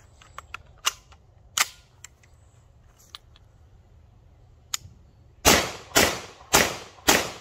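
Unsuppressed CZ Scorpion 9mm firing four shots about half a second apart, starting about five and a half seconds in, each sharp report trailing off in echo. The 115-grain steel-case rounds are fired into a berm at close range, and the shooter doesn't think the bullets are going supersonic. Two lighter sharp clicks come in the first two seconds.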